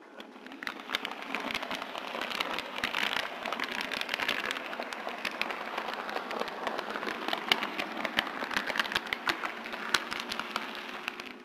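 HO scale model freight cars rolling along the track, heard up close from a car in the train: a steady, dense rattle of small wheel clicks over rail joints and turnouts. It builds up over the first second or two.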